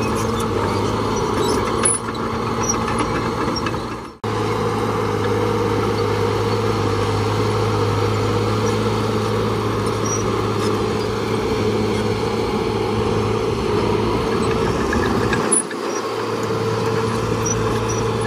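Diesel engine of heavy earthmoving machinery running steadily under load. The sound cuts out for an instant about four seconds in, and dips briefly again near the end.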